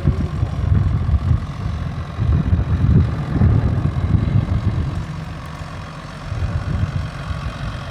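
A tractor engine running, with an uneven low rumble that eases after about five seconds.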